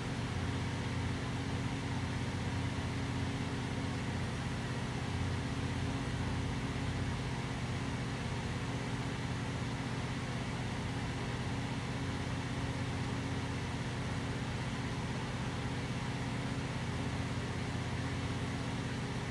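Steady low mechanical hum with several held tones, like a running fan or motor, unchanging in level.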